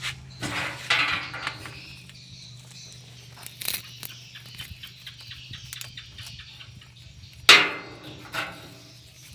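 Scattered hard knocks and clinks over a steady low hum, with one much louder knock about three-quarters of the way through.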